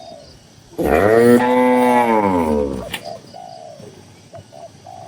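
A cow moos once, starting about a second in: one loud call of about two seconds whose pitch rises and then falls.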